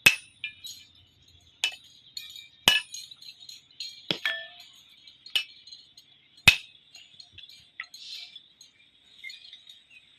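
Irregular sharp metallic clinks and taps, about seven in all, each with a brief ringing tone, as pieces of iron knock against each other.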